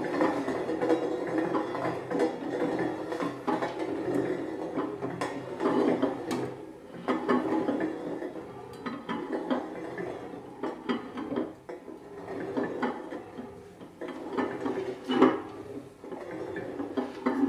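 Glass and stainless-steel pot lids spinning and wobbling on their rims on a wooden tabletop, a continuous rattling clatter full of small clicks that swells and fades several times.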